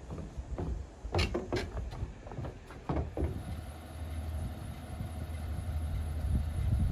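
SUV engine running with a low rumble that slowly grows louder, with a few sharp knocks in the first three seconds.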